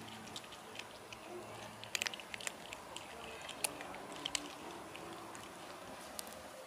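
Kittens crunching dry kibble: irregular sharp crunches and clicks, with a cluster of them about two seconds in.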